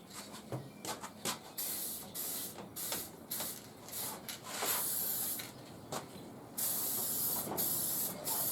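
Spray paint hissing from the nozzle in a series of short bursts, starting about a second and a half in, with a few longer passes in the second half.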